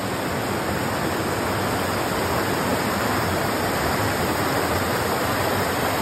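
Creek water rushing over rocks and small cascades: a steady, even rush with no breaks.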